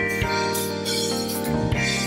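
A live band playing an instrumental tune: held keyboard chords from a Nord electric keyboard over drums and cymbals, the chord changing about a second and a half in.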